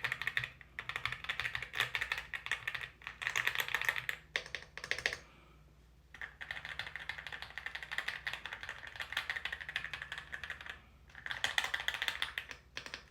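Typing on an Aula mechanical keyboard as a sound test: fast runs of keystroke clacks, broken by brief pauses and a longer one about five seconds in.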